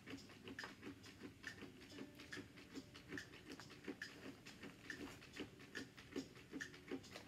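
Hands rummaging through a clear plastic zip-top bag of small plastic toy figures: faint, irregular clicks and light rustling as the pieces knock together and the bag crinkles.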